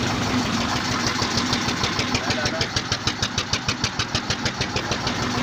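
Mustard-oil expeller (screw press) running, pressing mustard seed, with a steady mechanical hum. About a second and a half in, a rapid even clatter of about eight or nine knocks a second builds up, then fades near the end.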